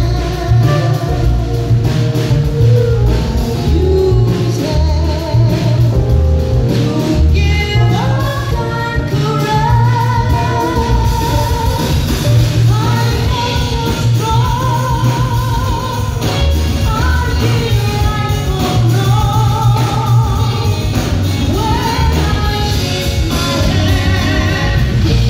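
Live jazz band with a woman singing long, wavering held notes over heavy bass and drums, loud and close to the stage as picked up by a phone's microphone.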